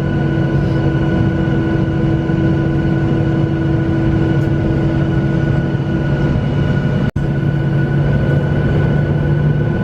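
Boeing 737 jet engines heard from inside the passenger cabin: a steady rush with several constant whining tones. A split-second dropout comes about seven seconds in, after which the low hum sits slightly higher in pitch.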